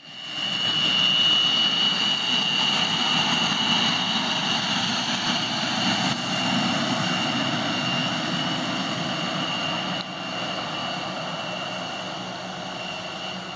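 Embraer E175's twin turbofan jet engines running with a steady high-pitched whine as the airliner taxis and turns onto the runway, slowly fading in the second half.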